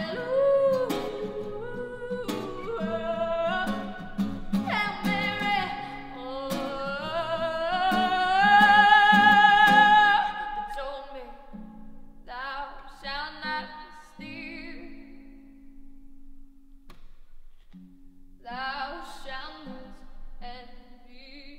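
A woman singing over an acoustic guitar. A long held note climbs and swells to its loudest about ten seconds in, then stops; the rest is quieter, shorter sung phrases over low guitar notes.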